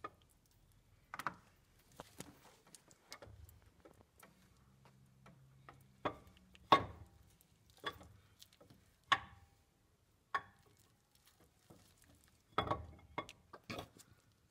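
Irregular hard clicks and knocks as a new, lube-coated camshaft is worked into the cam bore of a 5.7 Hemi V8 block, its lobes and journals tapping against the cam bearings. There are about a dozen knocks, the loudest about seven seconds in.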